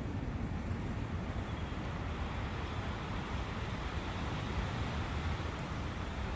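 A brook flowing through a forest: a steady, even rushing with a deep low rumble and no distinct events.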